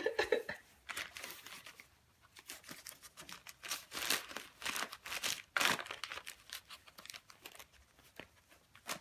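Gift wrapping paper crinkling and tearing in irregular bursts as a dog noses into and pulls at a wrapped present, the bursts thickest in the middle of the stretch.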